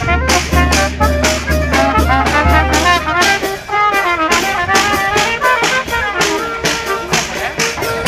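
Charanga street band playing a marching tune: trumpets carry the melody over a steady drum beat, about two to three beats a second.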